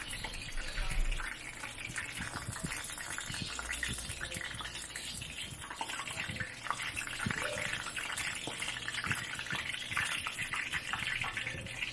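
Hot cooking oil sizzling and crackling around breaded chicken wings deep-frying in a wok, a steady fizz dotted with small pops. It is the frying sound the cook listens to in order to judge that the batch is done and ready to come out.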